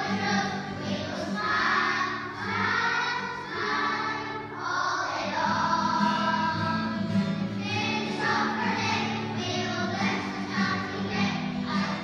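A class of young children singing a song together as a group, with held notes and short breaths between phrases.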